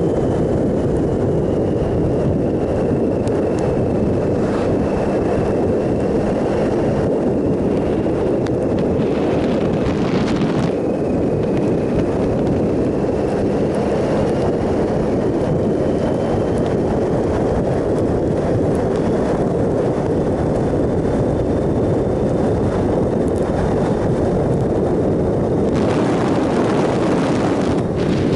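2007 Triumph Sprint ST 1050 at a steady cruise: its three-cylinder engine running under a heavy rush of wind over the microphone. Brief swells of hiss come about ten seconds in and again near the end.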